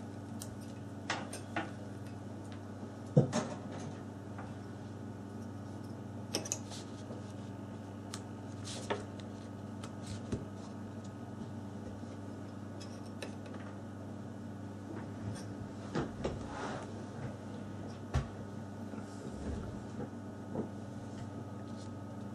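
Scattered small clicks and knocks of a phone and its charger being handled on a workbench, the loudest about three seconds in, over a steady low hum.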